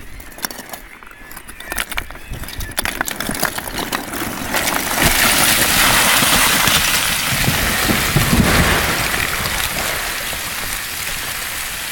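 Loose rocks knocked loose by a boot, clattering with scattered knocks, then a small rockslide of stones and gravel pouring down the slope about four seconds in. The rush is loudest in the middle and eases off toward the end.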